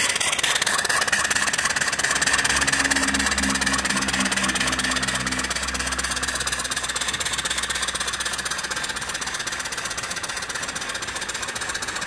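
Small single-cylinder vertical steam engine running fast on live steam, its rapid exhaust beats mixed with steady steam hiss. It fades slowly as boiler pressure drops and the boiler runs out of steam.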